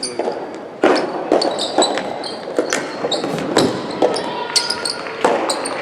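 Soft tennis play in a large echoing indoor hall: repeated sharp hits of the rubber ball off rackets and the court floor, mixed with short high squeaks.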